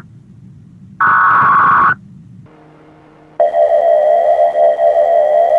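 Emergency Alert System warning broadcast. A one-second burst of buzzing digital header tones is followed, after a short gap, by a brief low hum. About three and a half seconds in, a loud electronic attention tone starts and keeps going: a steady high tone over a warbling lower one.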